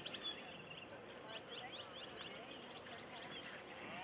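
Faint birds chirping, many short quick calls, over low outdoor background noise.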